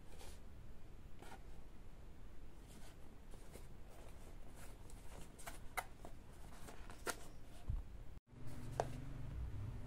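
Faint handling of a small cardboard box turned over in the hands: scattered light taps, scrapes and rustles of fingers on card. The sound cuts out for an instant about eight seconds in, and a steady low hum follows.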